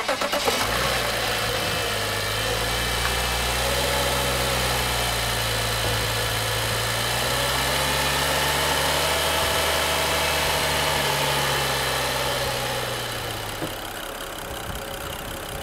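BMW 535i GT's N55 turbocharged straight-six starting, then idling steadily without stalling, its stalling fault now cured. The idle rises slightly in pitch partway through and the sound drops away near the end.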